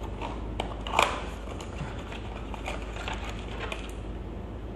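Cardboard packaging and a small clear plastic bag being handled: scattered taps, scrapes and crinkles, with one louder knock about a second in.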